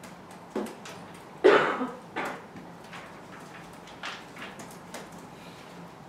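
A few short sounds from people sitting in a quiet room. The loudest, about a second and a half in, is a cough, with smaller knocks and stirs before and after it.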